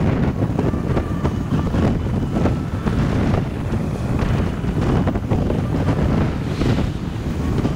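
Wind buffeting the microphone of a camera on a moving bicycle: a steady, dense low rumble.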